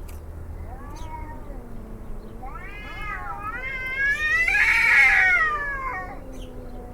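Domestic cat howling: a faint drawn-out call, then louder yowls that rise and fall in pitch, the last and loudest lasting about two seconds.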